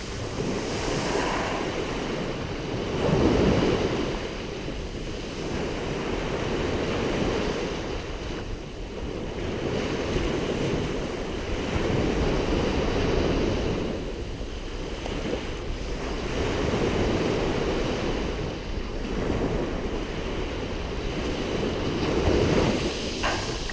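Mediterranean sea waves washing onto a fine-pebble beach, swelling and easing every few seconds, with some wind noise on the microphone.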